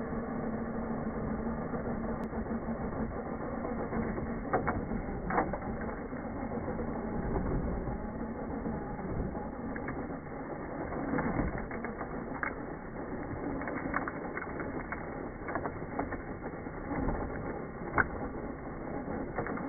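Toy RC car's electric motor and gearbox whirring steadily as its spinning rear wheel digs into gravel, with scattered sharp clicks of stones being thrown. Slowed to slow-motion speed, so it sounds low and drawn out.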